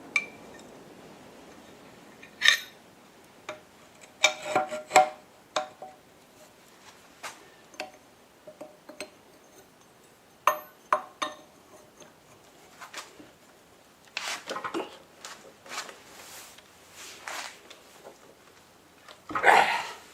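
Irregular clinks and knocks of metal parts and tools being handled, some ringing briefly, with a few longer scraping sounds in the second half: the sharpening machine being worked on by hand.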